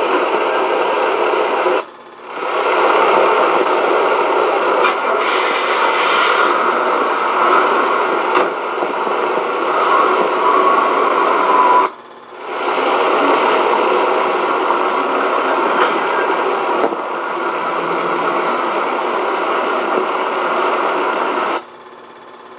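Steady, loud hiss of noise on an old home-movie soundtrack, with no voices, cutting out briefly twice and again near the end as the recording stops and restarts between shots.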